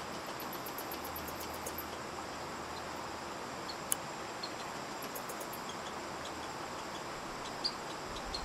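Steady outdoor background hiss with faint, scattered high-pitched ticks and one sharp click about four seconds in.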